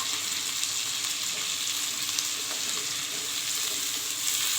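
Onions, whole spices and freshly added tomatoes sizzling in sesame oil in a pan: a steady frying hiss.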